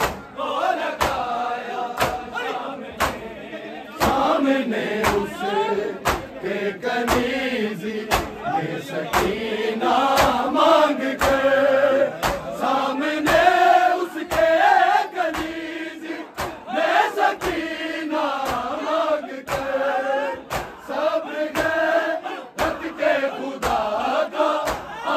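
A group of men chanting a noha, a Shia lament, in unison. Sharp rhythmic slaps of matam (hands beating on chests) keep time about twice a second.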